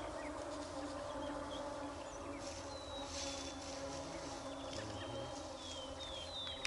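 Wild songbirds calling with short, falling chirps, then a rapid trill of repeated notes starting near the end, over a steady low drone.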